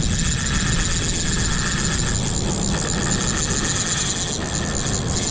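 Wind buffeting the microphone over the wash of breaking surf, a steady low rumble with a faint high whirr running through it.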